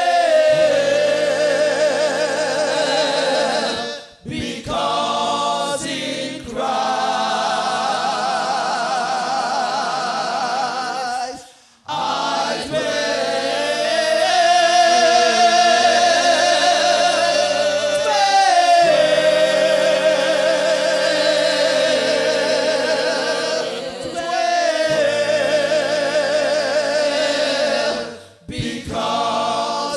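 Gospel choir singing long held notes in harmony with vibrato, stopping briefly between phrases three times.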